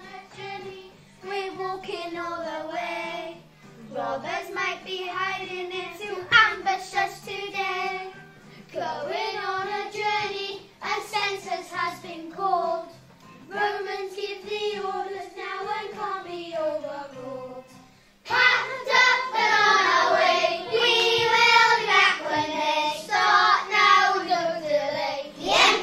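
A group of young children singing a song together, phrase after phrase with short breaks between; the singing gets louder about two-thirds of the way through.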